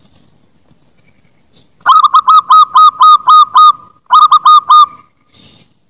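Zebra dove (perkutut) singing: starting about two seconds in, a rapid run of about eight short cooing notes, a brief pause, then four more.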